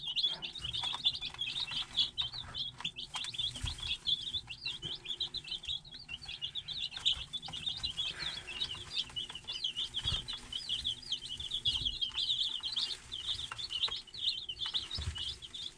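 A brooder full of day-old chicks (Rhode Island Reds, Black Sex Links and Dekalbs) peeping continuously, many short high peeps overlapping, with a few soft taps among them.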